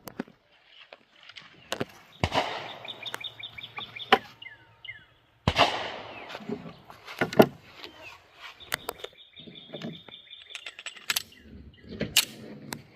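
Handgun shots fired one at a time with pauses of a second or more between them, with birds singing in the quieter gaps.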